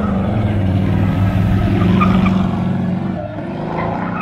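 Vintage racing car's engine running hard under acceleration as it passes through a bend. The sound is loudest about two seconds in and then fades as the car pulls away.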